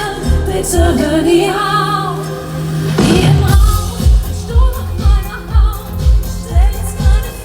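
Live schlager-pop concert music over the PA: a sung melodic line, then a rushing sweep about three seconds in, after which a steady kick-drum beat comes in at about two beats a second.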